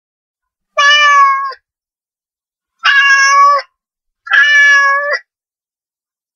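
Domestic cat meowing three times, each meow under a second long and fairly level in pitch.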